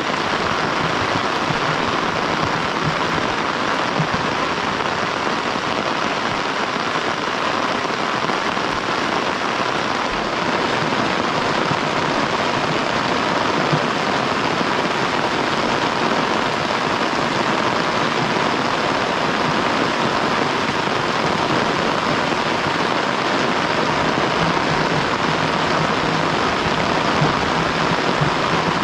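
Heavy rain falling steadily in an even, unbroken hiss.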